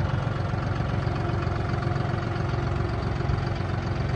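John Deere 5045E tractor's three-cylinder diesel engine idling steadily.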